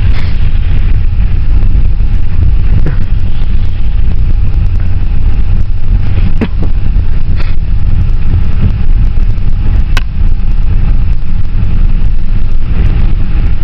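Steady, loud low rumble of a moving passenger van heard from inside the cabin: engine and road noise, with a few sharp clicks or rattles around the middle.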